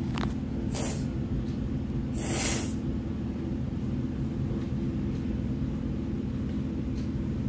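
A steady low electrical or mechanical hum in the room, with a few brief rustles from the phone being handled and turned in the first few seconds.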